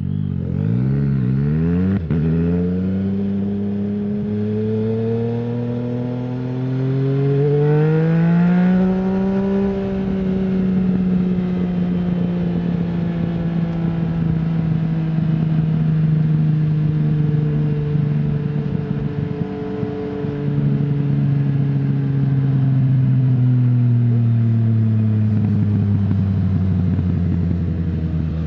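Yamaha MT-09's inline three-cylinder engine through an Akrapovic full-system exhaust with no dB killer, under way on the road. The engine note climbs steadily for the first nine seconds or so, then holds and eases slowly down, dips briefly about two-thirds through and picks up again, and falls off gradually near the end.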